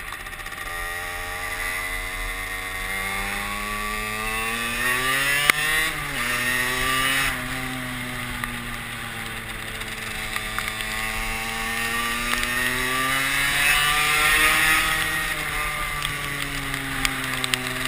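Derbi Senda moped engine under way, its pitch climbing, dropping sharply about six seconds in, then sagging and rising again as the throttle is worked, with wind rushing over the helmet camera's microphone.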